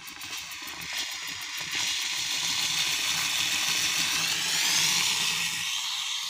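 Philips GC8755 PerfectCare Performer steam generator iron blowing steam from its soleplate, a loud hiss that builds over the first couple of seconds and eases off near the end, with a low hum underneath. The steam now flows freely, the blocked hose that had made it slow having been cleaned.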